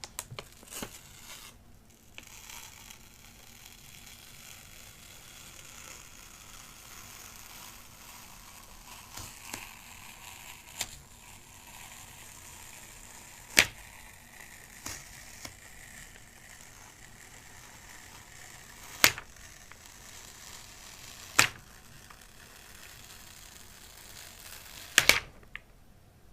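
Plastic shrink-wrap being torn off a MacBook Pro box by its pull tab and handled, a steady crinkling rustle. Four sharp clicks or taps stand out in the second half.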